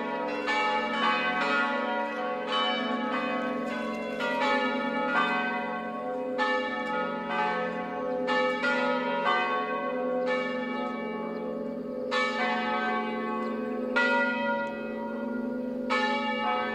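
Full ring of five electrically swung church bells tuned to a major scale in F#3 (F#, G#, A#, B, C#), all sounding together: overlapping strokes at irregular intervals over a continuous hum of their lower tones. It is the first call to Sunday Mass.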